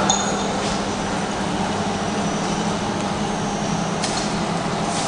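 Automatic top-and-side labeling machine running: a steady mechanical hum from its conveyor and drive motors, with a few brief high hisses.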